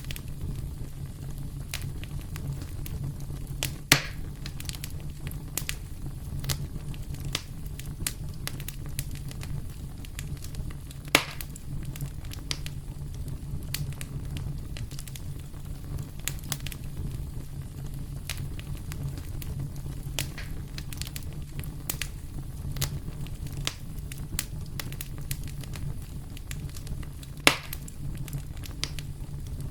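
Campfire wood burning with constant small crackles and snaps, three louder sharp pops among them, over a steady low rumble.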